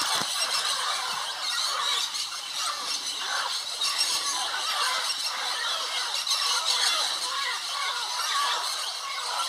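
A large flock of parrots calling together on a clay lick: a continuous din of many overlapping shrill squeals and squawks, with no pause.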